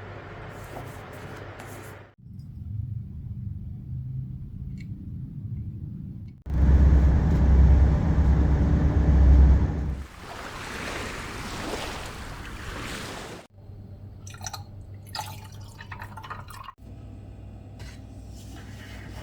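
Water sounds in a series of short clips joined with abrupt cuts, typical of sea water washing and rushing. The loudest stretch, about a third of the way in, is a deep rumble, followed by a brighter rushing hiss.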